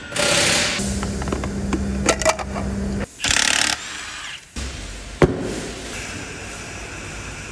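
A cordless impact wrench on wheel bolts, running in several short bursts, with a sharp knock about five seconds in.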